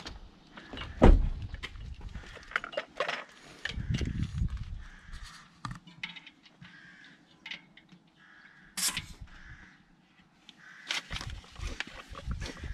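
Floor pump being used on a bicycle tyre: knocks and clatter of handling, with a loud thump about a second in, a short hiss of air around the valve about nine seconds in, then quick pump strokes near the end.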